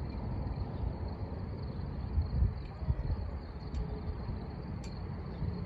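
Outdoor background noise: a low, uneven rumble with irregular swells, under a steady high-pitched hum and a few faint ticks. No horn sounds.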